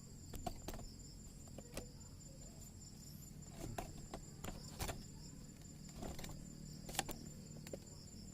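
Crickets chirring steadily in the background, with scattered sharp clicks and knocks throughout, the loudest about 5 and 7 seconds in.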